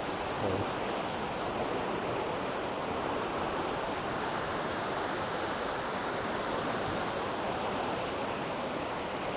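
Fast river rapids below the bridge: a steady, even rush of whitewater.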